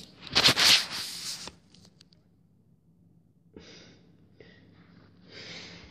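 Handling noise on the camera's microphone as the camera is knocked over: a loud rush of rubbing and clicks for about a second, then faint scuffs.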